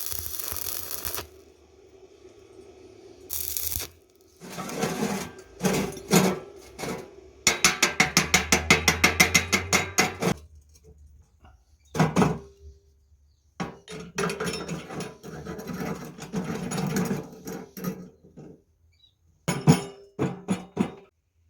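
Metal parts being handled and worked: a series of sharp clanks, a rapid rattling run of about ten clicks a second lasting nearly three seconds near the middle, and stretches of scraping, clattering metal.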